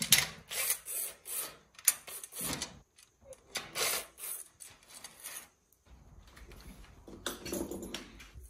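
Irregular scraping, rubbing and clicking of the roof basket's metal mounting parts being handled and fitted together, in uneven bursts: the U-bolt clamp hardware is being put on loosely.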